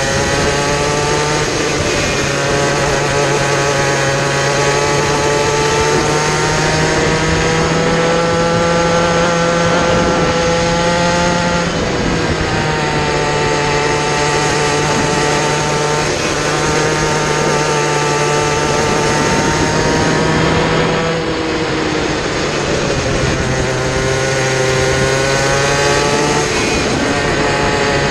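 Onboard sound of a kid kart's small racing engine running hard. Its revs climb steadily and then drop sharply for corners, about three times (roughly 12 s, 21 s and 26 s in), before rising again.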